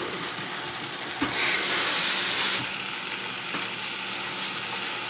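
Chicken curry sizzling and bubbling in a clay pot over a gas flame: a steady hiss, with a louder burst of hissing from about one to two and a half seconds in.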